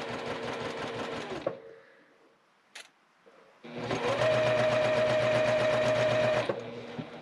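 Electric sewing machine stitching a seam in two runs: it stops about a second and a half in, a single click follows near three seconds, then it starts again, louder and higher-pitched, for about three seconds before stopping.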